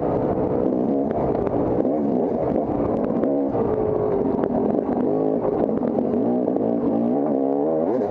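Off-road dirt bike engine racing, its pitch rising and falling over and over as the rider works the throttle and gears along the trail, with scattered light knocks and rattles.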